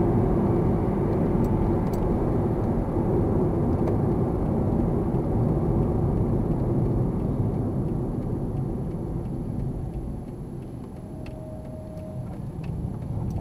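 A car driving, with steady road and engine noise heard from inside the cabin. The noise eases noticeably about ten seconds in and picks up again near the end.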